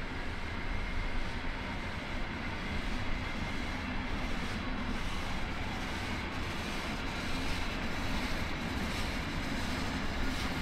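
Steam-hauled heritage passenger train rolling slowly past on steel rails: a steady low rumble of carriage wheels, with scattered sharp clicks from about four seconds in.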